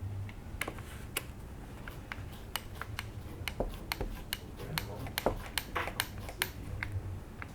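Small screws being driven by hand into 3D-printed plastic dashboard parts: a run of irregular sharp clicks and ticks, a few a second, from the screwdriver and the parts being handled.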